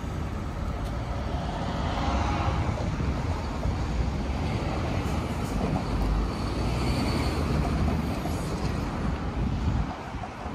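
Low, steady rumble of a large vehicle or vehicles running close by, which drops off sharply near the end.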